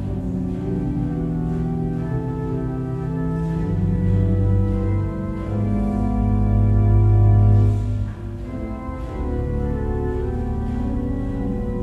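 Organ playing slow, held chords that change every second or two, with the sound briefly thinning about two-thirds of the way through.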